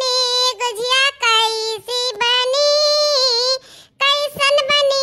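A very high-pitched cartoon voice singing in drawn-out phrases, holding long wavering notes, with short breaks between lines.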